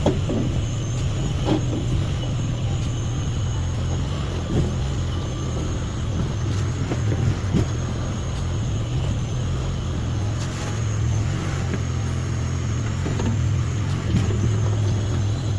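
Chinese mini skid steer's small engine running steadily, with a faint high whine over a low drone and scattered short clanks and knocks.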